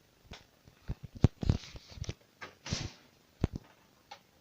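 Scattered knocks and clicks with a couple of short rustles: objects being handled and set down.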